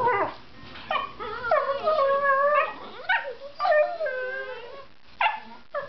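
A Mastiff and a chocolate Labrador play-wrestling and vocalizing in long, wavering, howl-like whines that slide up and down in pitch, a kind of dog 'singing'. The whines are followed by a couple of short yelps near the end.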